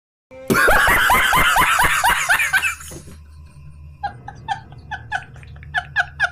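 A person laughing loudly in quick repeated 'ha' pulses for about two and a half seconds, then quieter snickering laughter from about four seconds in, over a low steady hum.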